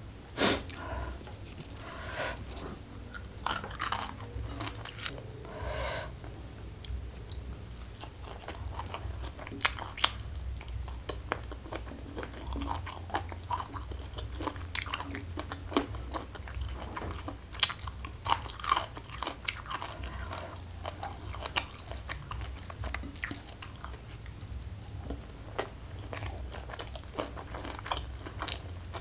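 Close-miked eating: irregular crisp bites and crunchy chewing of raw leafy greens and peeled petai (stink beans), with one sharp loud crunch just after the start.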